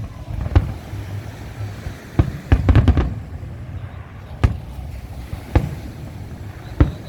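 Fireworks exploding: separate sharp bangs every second or so over a low rumble, with a quick volley of several bangs about two and a half seconds in.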